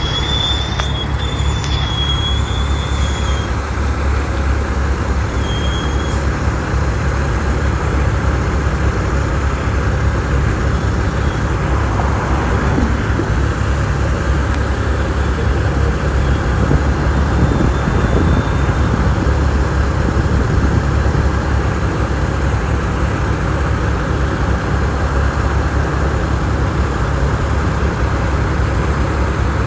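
Heavy diesel truck engine running with a steady low rumble, with a brief high-pitched squeal twice in the first few seconds.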